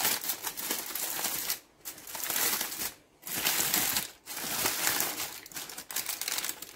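Aluminium foil and baking paper crinkling and rustling as hands pull a foil parcel open, in several spells broken by short pauses.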